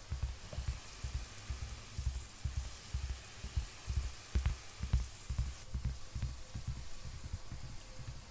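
A steady rain-like hiss with frequent, irregular low thumps underneath.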